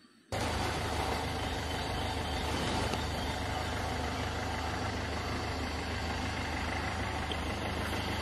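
An engine idling steadily: a constant low hum under an even hiss, starting abruptly a moment in.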